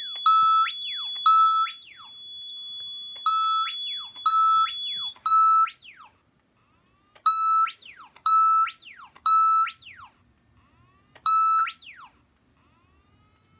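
EST Genesis speaker strobe sounding a fire alarm evacuation signal from a siren tone generator: pulses in groups of three, about a second apart with a pause between groups, each a held tone that sweeps up sharply and drops. A thinner steady high tone runs under the first few groups and stops.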